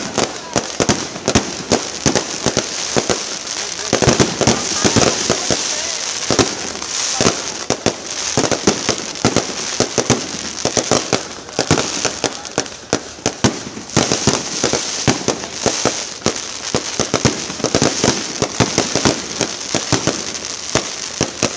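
Aerial fireworks bursting in rapid succession: a dense run of sharp pops and bangs over a steady high crackle.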